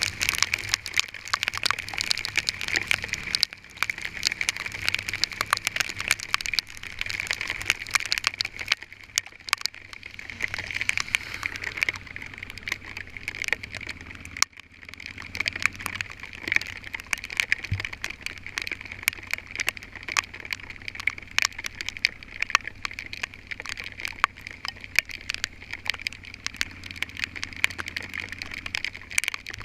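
Hailstones hitting a vehicle, a dense, irregular rattle of many small hard impacts that eases briefly a couple of times.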